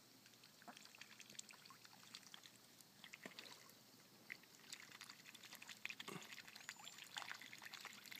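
Faint water splashing and trickling from ducks swimming and dabbling at the surface of a pond. There are many small splashes, and they grow busier after about three seconds.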